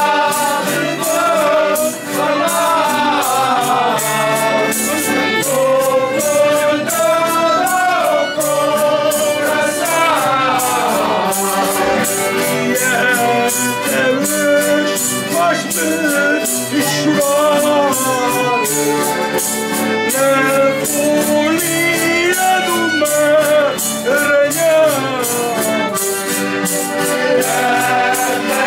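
A folk group singing traditional Janeiras songs together, voices over instrumental accompaniment with a steady percussion beat.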